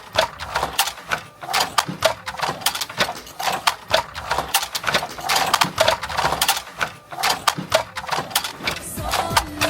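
Dense, irregular clacking and knocking: many sharp strikes, several a second, overlapping one another.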